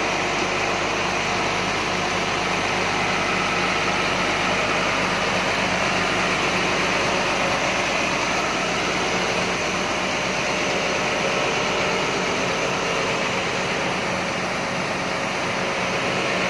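An engine running steadily under a broad, even hiss.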